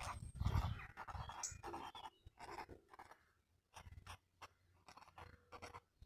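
Fineliner pen nib scratching on sketchbook paper in short, separate strokes as letters are written by hand. A low rumble sits under the first second.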